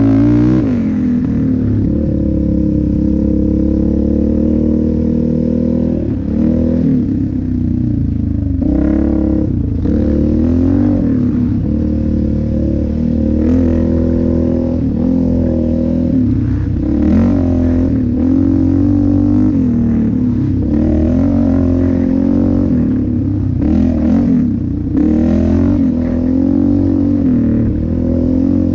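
Yamaha Raptor 700R ATV's single-cylinder four-stroke engine running on a dirt trail, its pitch rising and falling again and again as the throttle is opened and closed. A few brief clattering knocks come through as the machine goes over bumps.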